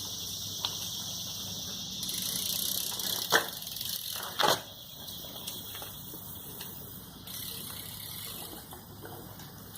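A BMX bike being handled after a failed trick, with two sharp knocks about three and a half and four and a half seconds in, over a steady high insect chirring.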